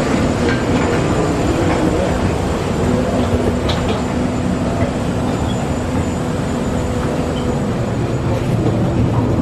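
Steady loud rumble with a low hum from machinery around the aircraft door and jet bridge, and a few faint clicks about four seconds in.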